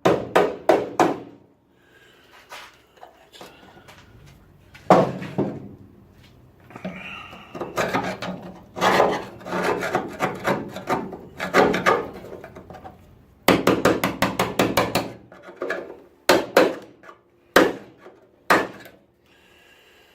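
Hand tool blows on the car body's sheet steel in quick runs of several strikes with short pauses between, knocking off leftover metal where the old floor was removed.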